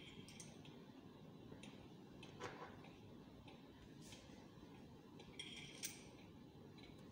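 Faint, scattered metallic clinks and ticks of slotted steel weights being handled on a weight hanger hooked to a lever rod, the loudest about a third of the way in and near the end.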